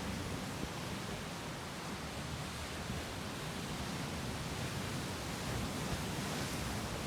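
Sea surf washing against rocks as a steady, even hiss, with no single wave standing out.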